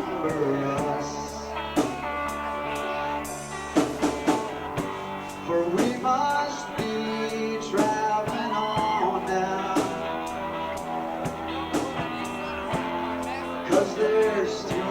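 Rock band playing a slow instrumental passage live: electric guitar notes gliding up and down in pitch over held chords, with drums and cymbals keeping time.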